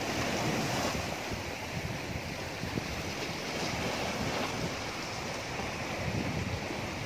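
Sea waves washing and breaking against shoreline boulders in a steady, even rush, with wind rumbling on the microphone.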